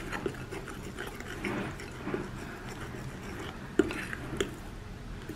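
A fork stirring and mashing dry cake mix into water, oil and eggs in a glass mixing bowl: soft, irregular scraping with small clicks of the fork on the glass, two sharper clicks about four seconds in.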